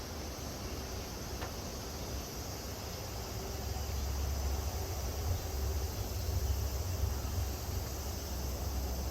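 Cicadas droning steadily in the background, with a low rumble underneath that swells about three seconds in and eases near the end.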